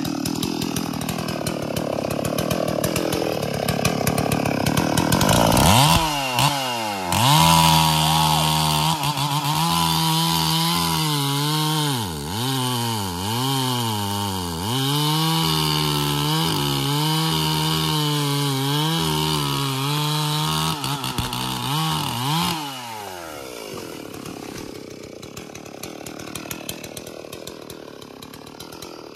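Stihl MS 440 two-stroke chainsaw running at full throttle through the trunk of a large tree, its engine note repeatedly dipping and recovering as the chain bites into the wood. About 23 seconds in the engine drops off and the sound falls away to a much quieter level.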